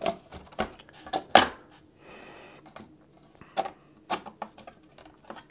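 Irregular light clicks and knocks as a flat assembled box panel is flipped over and set down on a silicone mat, with a brief sliding scrape about two seconds in.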